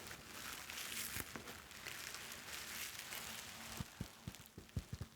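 Bubble wrap being handled, with faint crinkling and then a quick run of sharp little clicks near the end.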